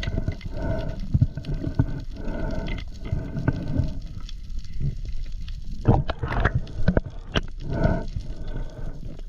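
Water sloshing and gurgling around a camera held at the water's surface, with a repeated hollow sound about once a second, dropping away for a moment about four seconds in, then a few louder rushing swells near the end.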